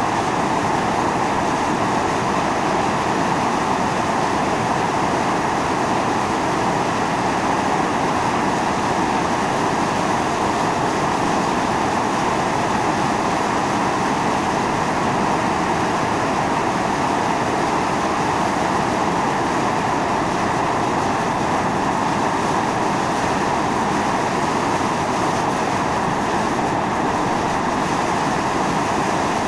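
Volcanic fumarole steadily hissing as steam and gas jet from the vent, a dense rushing noise with no pauses.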